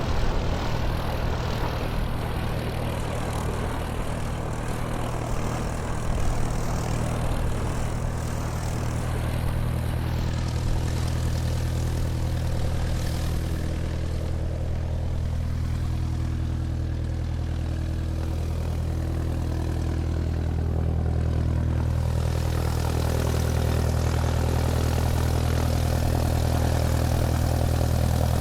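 Airplane engine running steadily while the aircraft taxis: a deep, even hum that grows slightly louder in the last few seconds.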